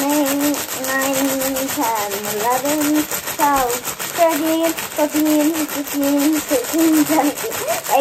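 Clear plastic bag rubbed briskly between a child's palms, crinkling and rustling in a quick, even rhythm, with a voice counting along.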